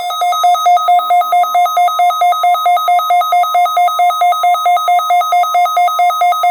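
A weather radio receiver's alert alarm warbling, two tones alternating rapidly about four times a second, set off by the NOAA Weather Radio 1050 Hz warning alarm tone, which holds steady and faint beneath it. The warble cuts off abruptly at the end.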